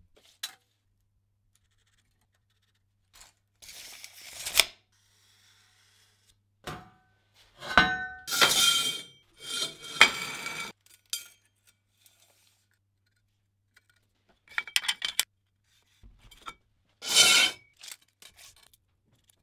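Steel bar stock being handled: short, scattered scrapes and clinks of metal on metal, some with a brief metallic ring, the loudest in the middle and near the end.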